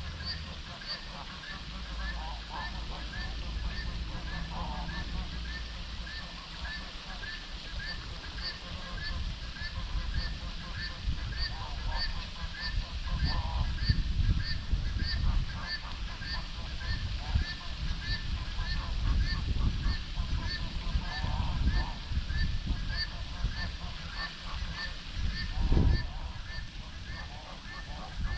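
Outdoor wildlife ambience: animal calls repeat steadily about one and a half times a second, some high and thin and some lower, with scattered louder honk-like calls over it. A low rumble of wind or distant noise runs underneath and swells briefly near the end.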